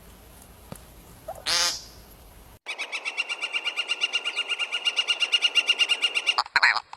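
Animal calls from two different recordings. First comes one loud, rising, pulsed call. Then a rapid, even, pulsing trill runs for nearly four seconds, followed near the end by a few shorter calls of another kind.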